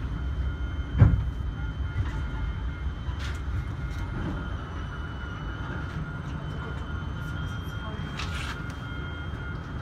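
Inside a stationary tram: a steady low rumble with a thin, steady high whine from the tram's equipment, and one sharp knock about a second in.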